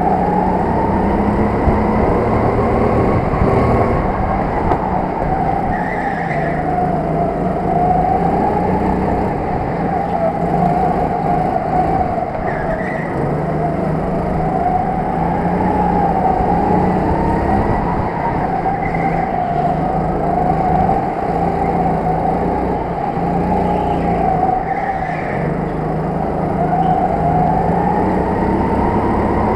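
Onboard sound of a go-kart running hard, its pitch rising and falling over and over as it slows for corners and speeds up out of them. A few short squeals come through along the way.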